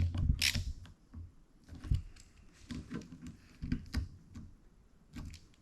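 Scattered light metal clicks and taps from a hand wrench working the housing bolts of a billet steering rack as they are snugged down, with a sharper click about half a second in.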